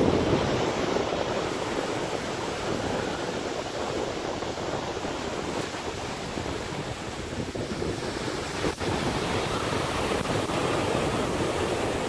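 Ocean surf washing on a sandy beach, a steady rushing noise, with wind buffeting the microphone.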